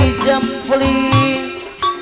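Live Sundanese jaipongan music: a female singer holds a sung line with a wavering pitch over kendang drum strokes that slide in pitch and the accompanying ensemble. The held note ends about one and a half seconds in and the drums and instruments carry on.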